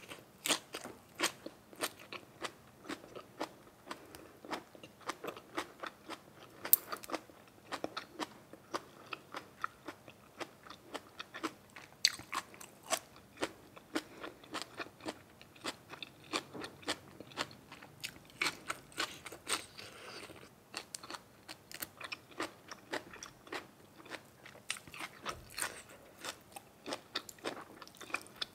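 A person chewing and biting food close to the microphone: a steady run of crunches and wet mouth clicks, a few a second.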